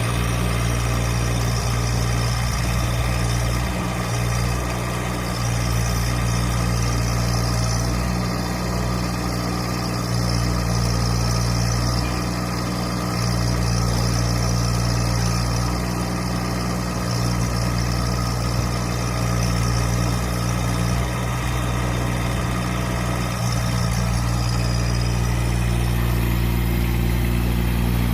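Mini crawler excavator's engine running steadily, with small dips in level every few seconds.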